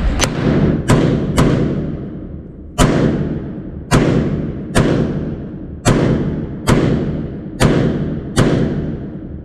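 Short-barrelled AR-15 with a 7.5-inch barrel firing 5.56 rounds: about ten shots at an uneven pace of roughly one a second, each followed by a long echo that fades over about a second.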